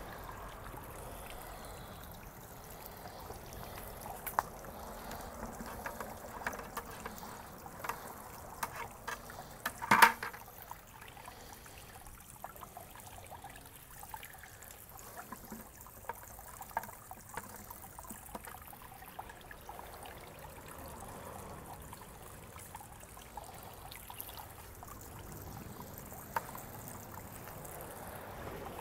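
Water trickling and splashing in a garden pond as floating plants are lifted out with a pole, with scattered small drips and splashes over a steady trickle from the pond's waterfall. One louder, sharper sound about ten seconds in.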